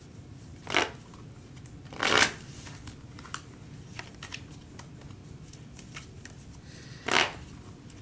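Tarot deck being shuffled by hand: three short bursts of cards rustling against each other, about a second in, about two seconds in and near the end, with light card clicks in between.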